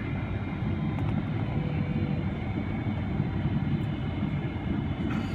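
Cabin noise of a Boeing 777-300ER on approach, heard inside the cabin beside its GE90-115B engine: a steady deep rumble of engine and airflow with a faint steady whine.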